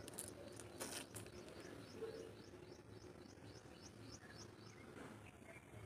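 Faint outdoor background with a small bird calling: a run of about a dozen short, high chirps at roughly four a second. Two brief rustles, like handling noise on the phone, come near the start.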